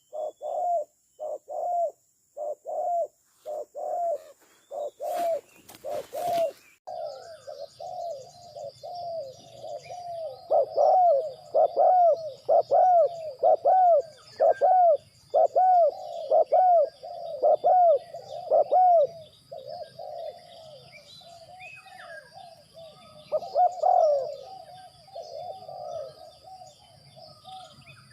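Spotted doves cooing: a run of short, arched coo notes about two a second. After a brief break about six seconds in, the notes come faster and overlap, as more than one dove calls.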